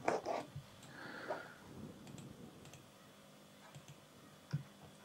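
Computer mouse clicks: two sharp clicks close together at the start and one more near the end, with a soft brief noise between them.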